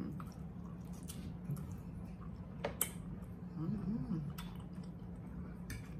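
Forks clicking against plates in short, sharp ticks, four times, over a steady low hum, with a brief closed-mouth "mm" about four seconds in.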